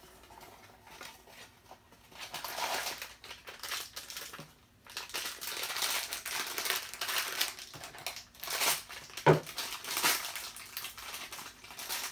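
Small cardboard toy box for a mini bobblehead being worked open by hand, its packaging rustling and crinkling, with a sharp snap about nine seconds in. The box is hard to open.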